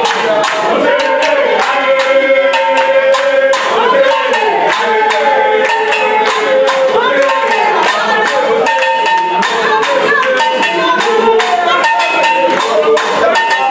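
Group singing over a quick, steady beat of hand claps and percussion.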